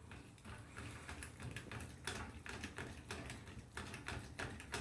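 Small, quick clicks and taps from a toy poodle moving about its bowl after eating, an uneven run of about three or four a second.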